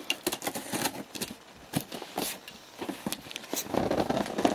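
Cardboard box being handled and turned: a string of scrapes, rubs, light taps and crackles of the cardboard under the hands.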